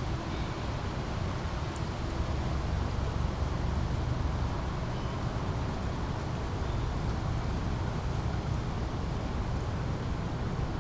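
Steady flowing water of a small brook under a constant low rumble of road traffic, with a few faint bird chirps.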